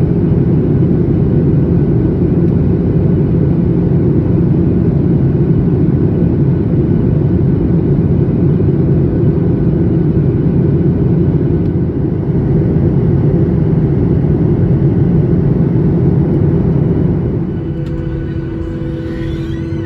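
Jet airliner cabin noise in flight: the steady, low noise of the engines and rushing air, heard from a window seat over the wing. Near the end it drops to a quieter, steadier hum.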